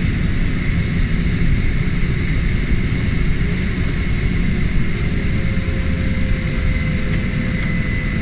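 A floatplane's engine and propeller running steadily, heard from inside the cabin as the plane moves across the water on its floats, with a faint steady whine over the noise.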